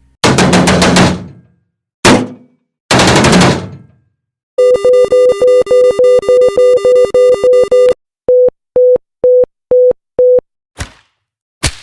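A string of separate sound-effect clips played back to back: three short noisy hits or bursts, then a fast run of buzzy electronic beeps at about four a second, then five slower, clean beeps at about two a second, then two short sharp swishes near the end.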